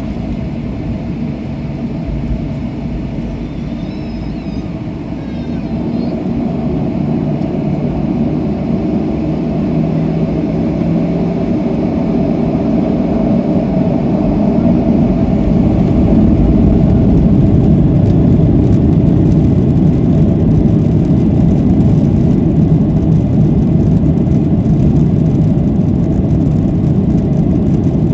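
Boeing 737-700 jet engines (CFM56-7B) spooling up for takeoff: a deep, even rumble that grows louder over about ten seconds and then holds steady at full power.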